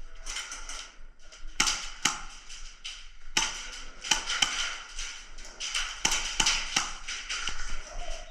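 Airsoft guns firing in rapid bursts of sharp snapping shots, about four volleys a second or so apart.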